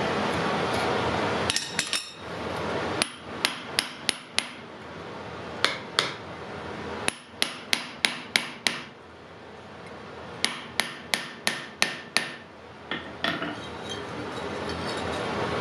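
Blacksmith's hammer striking hot iron on an anvil in quick runs of two to seven sharp, ringing blows with short pauses between. A steady rushing noise fills the first second or so and comes back near the end.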